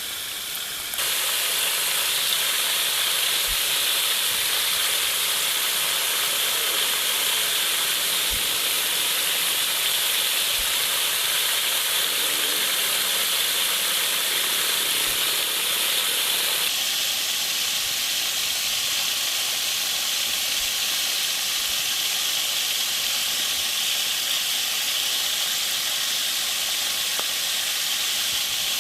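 Steady rain: an even, loud hiss of falling water. The sound changes suddenly about a second in and again a little past the middle, as if cut between takes.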